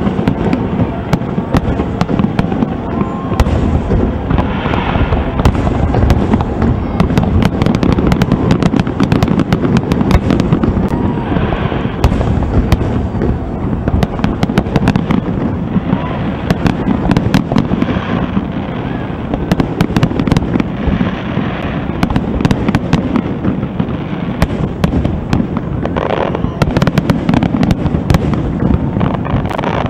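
Aerial fireworks display: shells bursting one after another in rapid, overlapping bangs and cracks over a continuous low rumble.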